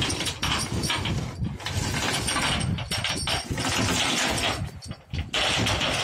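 Heavy steel mooring chains being hauled up by a crane over a steel pontoon deck: links clanking and rattling against metal over a running motor. The noise dips briefly about five seconds in.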